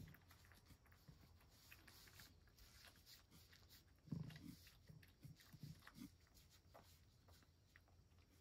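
Faint sounds of a cat eating a bonito treat: soft licking and chewing, with a short run of low smacks about four to six seconds in.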